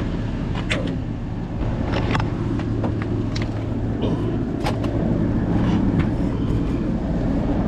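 A motor vehicle running steadily with a low rumble, and a few short clicks and rattles scattered through it.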